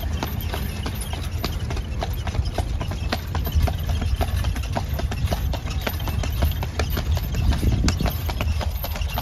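Shod hooves of a horse pulling a carriage clip-clopping on asphalt, several sharp clops a second, over a steady low rumble.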